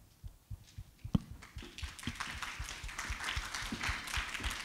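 Audience applauding, starting about a second and a half in and building to a steady clapping.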